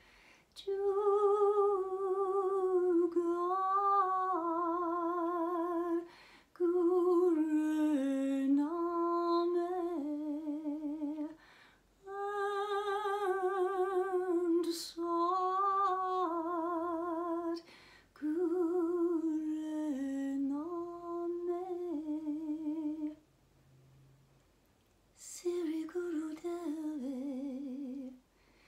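A woman singing a slow, wordless melody with a wavering vibrato, in phrases of a few seconds broken by short breaths, with a pause of about two seconds near the end.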